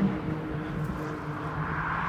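Cars on a race circuit heard from trackside: a low rumble with a faint steady engine drone. Near the end comes a rising rush of tyre and wind noise from an approaching electric Tesla Model 3.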